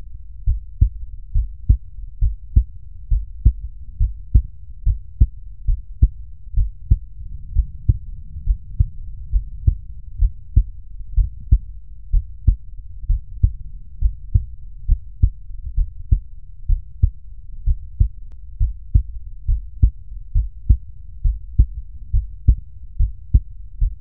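Normal heart sounds of a young man picked up by an electronic stethoscope at Erb's point, the third left intercostal space beside the sternum. A steady, regular rhythm of low paired lub-dub beats: the first and second heart sounds.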